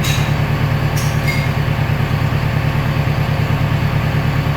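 Recycling baler machinery running with a steady low hum, with brief metallic clicks at the start and about a second in.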